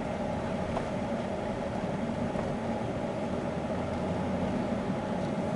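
Steady engine and tyre noise of a car driving slowly in traffic, heard from inside the cabin.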